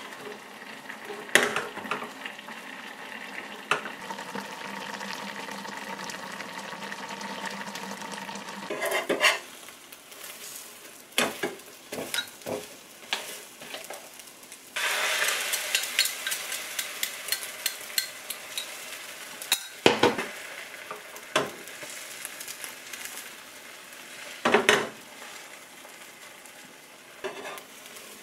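Beaten egg sizzling in a hot nonstick frying pan for a Korean rolled omelette. Utensils tap sharply against the pan now and then. The sizzle turns louder and hissier about halfway through.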